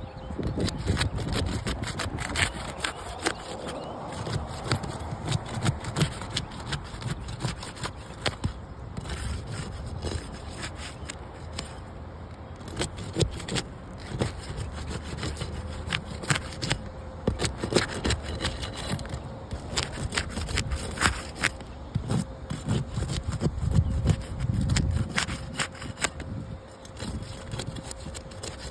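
Irregular knocks, clicks and scraping of hand repair work, over a faint steady hum.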